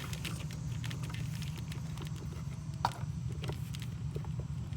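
Scattered small clicks and knocks from hand and part handling as a spark plug wire boot is worked down onto a spark plug in a cramped engine bay, with one sharper click about three seconds in, over a steady low hum.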